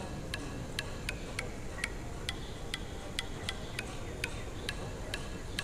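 Light, even ticking, about three ticks a second, over a faint steady hiss.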